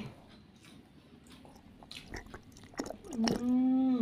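Quiet, close chewing and wet mouth clicks of a man eating roast chicken with his hands, then about three seconds in a long held vocal sound at one steady pitch that slides down as it ends.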